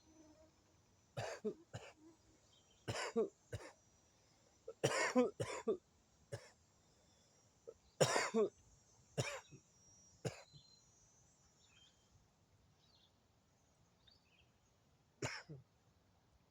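A man coughing repeatedly from smoking cannabis: short harsh coughs in clusters of two or three through the first ten seconds, then one more near the end.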